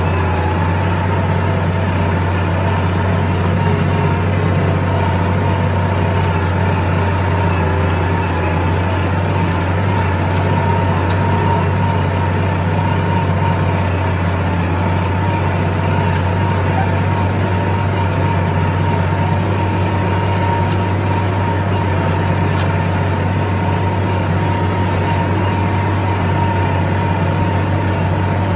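Tractor engine running steadily under load as it pulls a disc harrow through soil: a loud, unbroken drone with a low hum.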